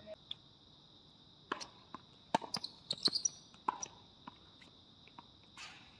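Tennis ball being struck and bouncing during a singles rally on a hard court: a string of sharp pops and bounces, most of them between about one and a half and four seconds in. A steady high insect drone runs underneath.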